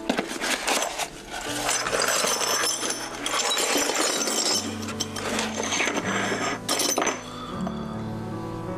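Soft background music with low held notes, over the rustle of a cardboard box being handled and the clinking of broken ceramic pieces. The handling noises thin out in the last second or so, leaving mostly the music.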